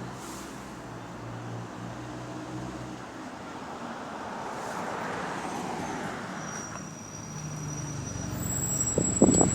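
Bus engine running noisily with an exhaust leak. The engine note swells in the middle and again near the end, with a few sharp knocks just before it ends.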